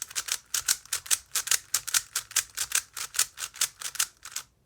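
3x3 puzzle cube being turned quickly by hand, its layers clicking about five to six times a second as it is solved, stopping near the end.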